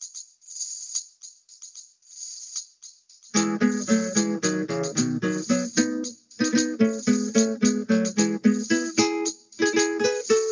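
Upbeat intro music: a shaker rhythm on its own at first, then about three seconds in plucked acoustic strings join with quick notes.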